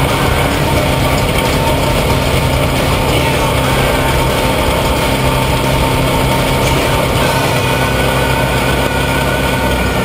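Off-road race truck's engine running hard at speed, heard up close from over the engine. About three-quarters of the way through, the engine note drops lower.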